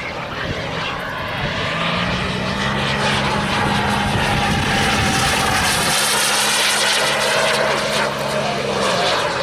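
Radio-controlled model jet flying a pass overhead: a rushing engine whine that swells toward the middle and sweeps in pitch as it goes by. A low steady drone runs underneath.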